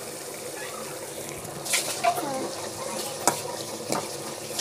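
Steel ladle stirring dried fish and masala in an iron kadai, scraping and clinking sharply against the pan four or so times over a steady sizzle of frying.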